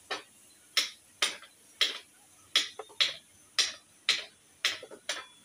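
Sharp plastic clicks, about ten of them at roughly two a second, as an LED headlight bulb is worked and seated by hand into a motorcycle headlamp.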